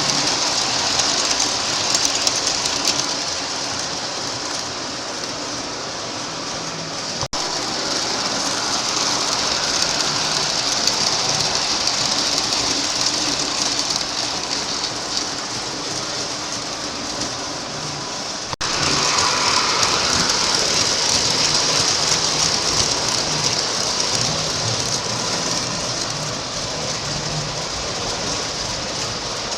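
Lionel O-gauge model subway train running on three-rail track: the steady rumble and clatter of its wheels and motors, swelling and fading as it goes past. Broken by two sudden cuts, about 7 seconds and about 19 seconds in.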